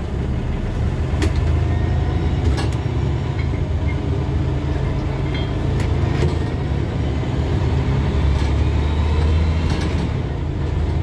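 Interior of a double-decker bus under way: the diesel engine and drivetrain give a steady low drone, mixed with road noise and scattered short clicks and rattles from the fittings.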